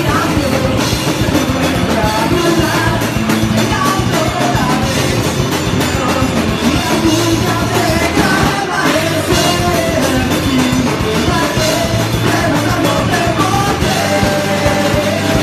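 Hardcore punk band playing live: electric guitars, bass and drums with vocals into the microphone, loud and dense throughout. A note is held steady near the end.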